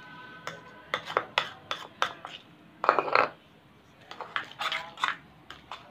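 Metal spoon stirring shaving foam and glue in a bowl: irregular scrapes and clicks of the spoon against the bowl, loudest about three seconds in.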